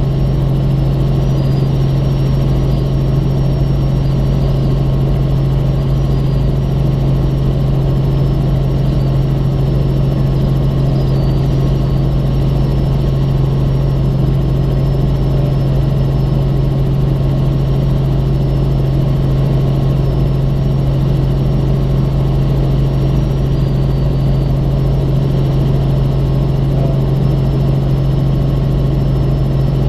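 Robinson R44 Raven II helicopter running steadily, a constant loud drone with one strong low hum that holds the same pitch throughout.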